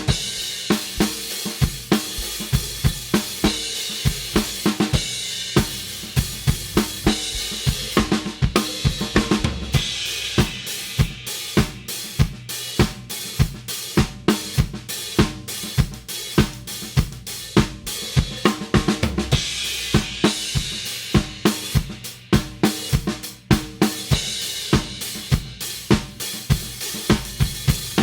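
Drum kit groove on a pair of 16-inch Istanbul Mehmet Nostalgia hi-hats, with kick drum and snare beating steadily under a constant hi-hat wash.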